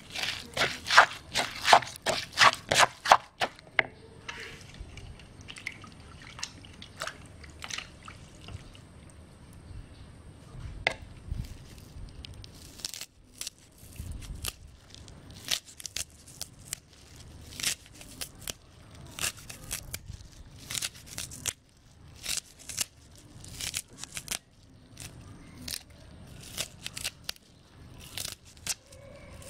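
Plastic spoon tossing raw shrimp and wet chili paste in a mortar: quick wet clicks and slaps, about four a second for the first few seconds, then scattered single taps and clicks.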